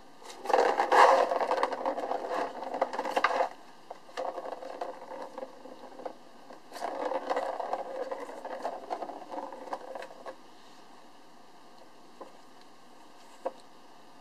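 A kitten's claws scraping and raking at a corrugated cardboard scratch pad, in two rough bouts of a few seconds each, with scattered clicks between them.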